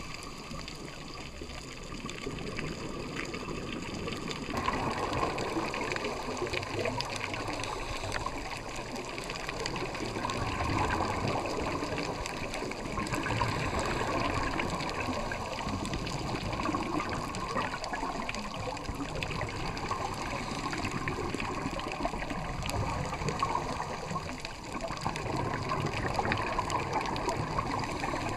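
Underwater sound of a scuba diver's exhaled bubbles rushing and gurgling, swelling and ebbing irregularly, heard muffled through a camera's waterproof housing. It turns abruptly louder and brighter about four and a half seconds in.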